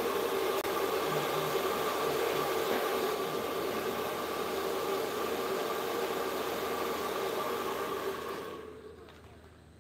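A handheld power tool's electric motor running steadily with a hiss and a steady hum, then switched off near the end and winding down over about a second.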